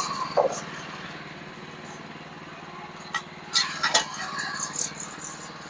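A sawmill's engine running steadily at idle, with a few sharp metallic clanks and knocks about three to four seconds in.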